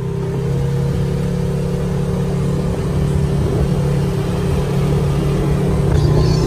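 Polaris RZR side-by-side's engine running steadily on the move, a low hum with a fainter higher tone above it; it grows a little louder about halfway through.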